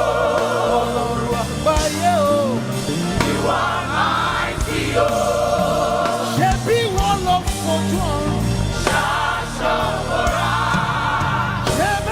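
Live gospel praise music: a group of voices singing sustained chords over band accompaniment, with a lead voice's sliding runs above them.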